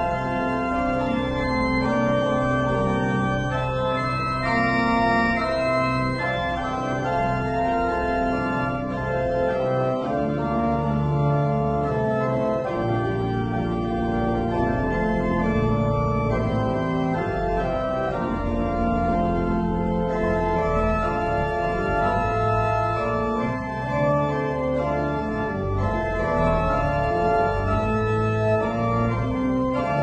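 Pipe organ playing slow, sustained chords over held bass notes, the harmony changing every second or two.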